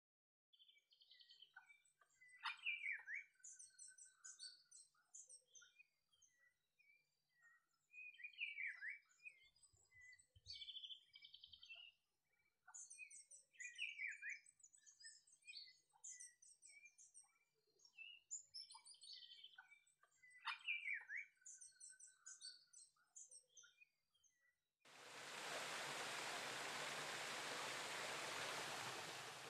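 Birds calling faintly, a phrase of gliding whistled notes with high twittering chirps repeating about every six seconds. About 25 seconds in, a steady rushing noise starts abruptly and covers them.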